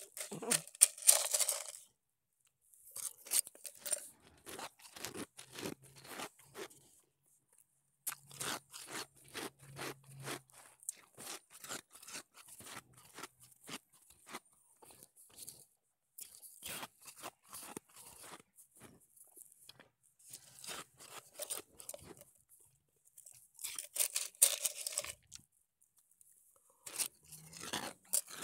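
Sonic nugget ice being chewed: dense runs of crisp crunches in bouts of several seconds, broken by short pauses.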